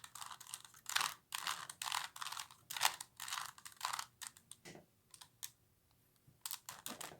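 Plastic 3×3×3 Rubik's cube being turned by hand: a run of quick clicks and rattles as the layers are twisted, pausing for about a second near the end before starting again.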